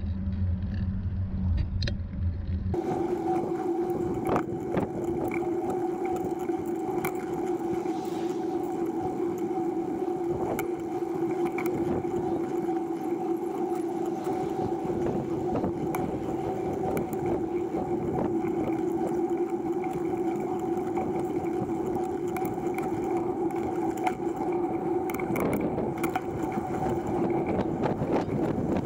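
TerraTrike recumbent trike rolling along pavement: a steady hum with road noise and many small clicks and rattles from the trike. A low rumble in the first few seconds switches abruptly to the steadier hum.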